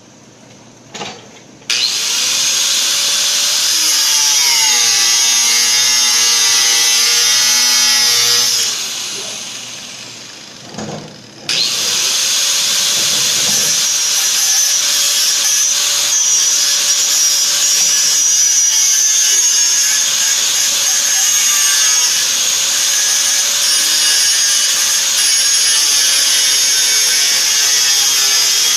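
Angle grinder cutting a metal tube clamped in a vise. It starts about two seconds in with a high whine that wavers in pitch as the disc bites, winds down around nine seconds, then starts again at about eleven and a half seconds and keeps cutting.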